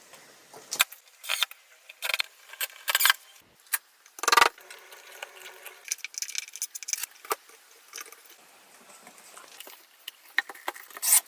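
Workshop handling sounds from building a small wooden speaker: irregular short clicks, taps and scrapes of parts and tools. A louder scrape comes about four seconds in.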